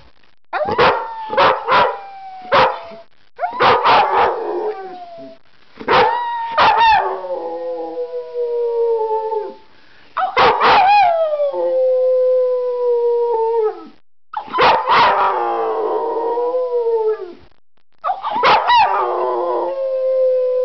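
A dog howling in about six rounds with short pauses between, each opening with a few short yips and then drawing out into a long howl that slides down in pitch.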